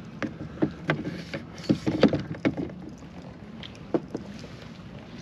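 Irregular knocks and thumps on a kayak, about a dozen, bunched between one and three seconds in, with one more near four seconds.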